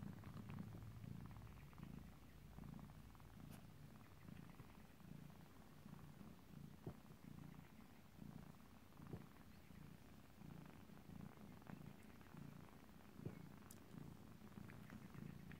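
Faint, steady, rhythmic purring of a mother cat nursing her kittens, with a few soft clicks scattered through it.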